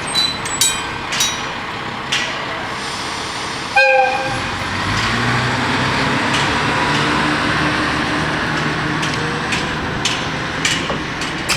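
Freight train passing over a level crossing: wheels clacking over the rail joints, one short horn blast about four seconds in, then the locomotive going by with a steady low drone and a few more wheel clacks near the end.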